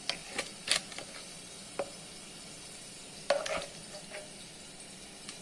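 Wooden spoon knocking and scraping pieces of fried fish around a frying pan: a few sharp knocks in the first second, another a little later, a longer scrape past the middle and one more near the end, over a faint steady sizzle of hot oil.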